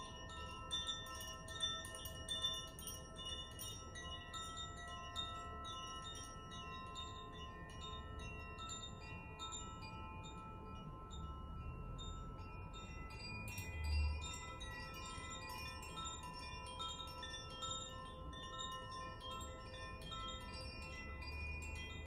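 Hand-held Koshi and Zaphir chimes swung gently, their clappers striking the tuned rods again and again so that bright tinkling strikes layer over sustained, overlapping ringing tones. About two-thirds of the way in there is a single soft low thump.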